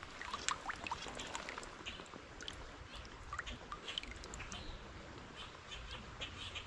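Shallow stream water trickling and splashing, with many small sharp drips and splashes and a few short chirps.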